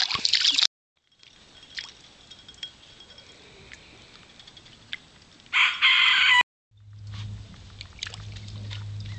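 Ducklings splashing in a shallow water bowl, then after a cut a short loud burst of poultry calls lasting under a second. After another cut a steady low hum sets in.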